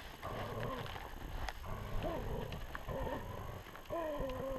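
West Siberian Laika hunting dogs calling in short pitched yelps and whines, about one a second, the last held for about half a second near the end, as they worry a bear that has just been shot.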